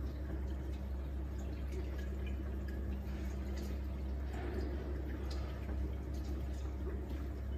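Reef aquarium's water circulation running: a steady low hum with water trickling and dripping, small drip ticks scattered throughout.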